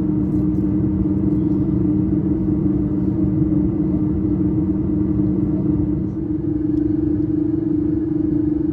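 Steady low rumble of a vehicle in motion, heard from inside, with a continuous droning hum. A second, lower hum tone drops away about six seconds in.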